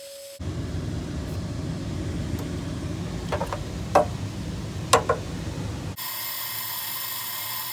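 Road noise inside a moving vehicle: a steady low rumble with a few sharp clicks around the middle. Near the end it cuts to a brief hissy sound with steady tones.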